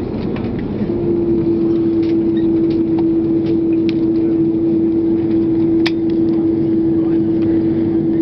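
Cabin noise of an Airbus A330 taxiing after landing: a steady low rumble, joined about a second in by a steady hum that holds on. A few light clicks, one sharper about six seconds in.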